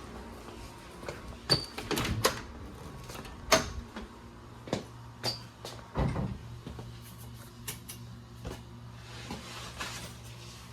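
Scattered footsteps, knocks and clicks of doors being opened and closed, with a low steady hum coming in about halfway through.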